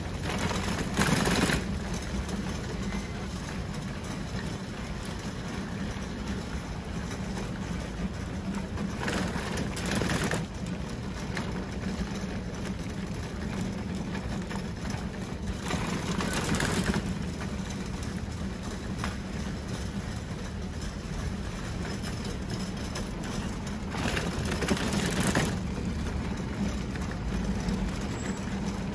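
Outdoor car-park ambience: a steady low mechanical hum, with four brief louder rushes of noise, each about a second long, roughly every seven to eight seconds.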